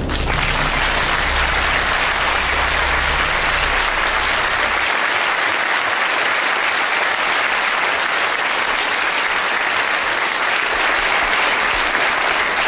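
Large audience in a lecture theatre applauding, a steady, even clapping.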